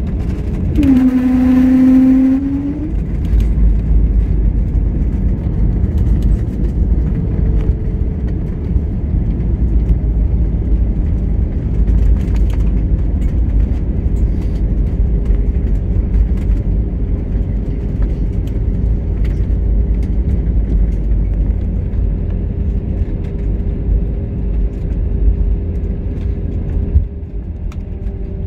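Cabin noise of an Airbus A320neo, with Pratt & Whitney PW1100G engines, on its landing rollout. A brief humming tone near the start gives way to a loud, steady, low rumble of wheels on the runway and engine reverse thrust, with the ground spoilers raised. The rumble drops off suddenly near the end as the deceleration eases.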